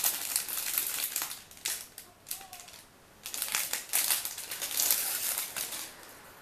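Clear plastic bag of a model kit crinkling as it is opened and handled: two spells of rustling, with a short pause of about a second between them.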